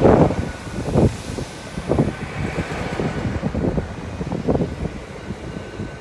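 Train moving through the station, with a steady rumble, a faint steady whine and irregular low knocks about once a second.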